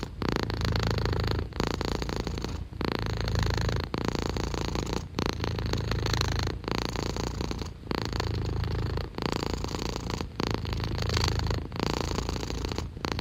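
Domestic cat purring continuously, a low rhythmic rumble broken by a short gap about every second and a quarter.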